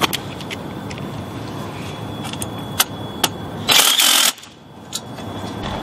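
Cordless drill driving self-drilling Tek screws through a short piece of wiggle-wire channel into a greenhouse roll-up bar, the motor running steadily with a few clicks and a brief louder burst about four seconds in.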